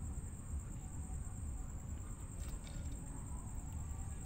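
Wading in shallow water at night. There are a few soft splashes from a foot or scoop net moving through the water about two and a half seconds in, over a steady low rumble and a constant high trill of night insects.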